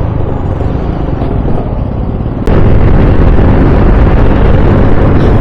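Wind buffeting and road rumble on the helmet-mounted camera microphone of a moving scooter. About two and a half seconds in, the noise jumps suddenly louder and stays there.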